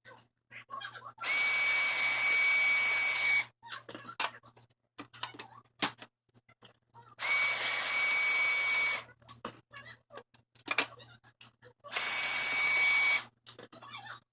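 Air blower blasting dust out of an old computer case in three bursts of about one to two seconds, each a loud rush of air with a steady thin whistle, starting and stopping abruptly. Small clicks and knocks of handling come between the bursts.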